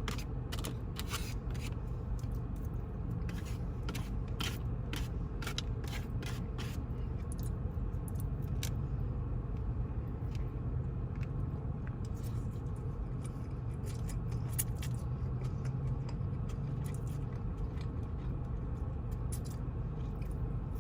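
Eating sounds: a utensil scraping and picking at food in a takeout container, with short clicks of chewing and crunching, thick over the first several seconds and then sparser. A steady low hum runs underneath.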